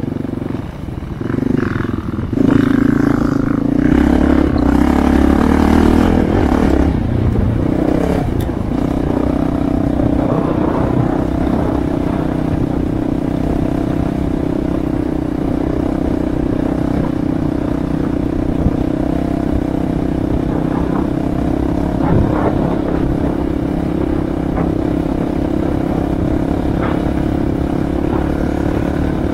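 Dual-sport motorcycle engine heard from on board, louder and changing pitch as it is revved over the first several seconds, then running at a steady pitch while cruising. Short knocks are scattered through it.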